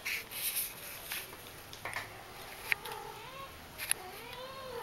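Persian kittens: scratchy rustling of claws on a sisal-rope scratching post in the first second or so, then a couple of sharp ticks and a few high, rising-and-falling mews in the second half.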